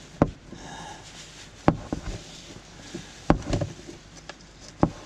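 About five sharp knocks and clicks, irregularly spaced, from hand work on a Polaris Ranger's air filter housing as the new filter is fitted.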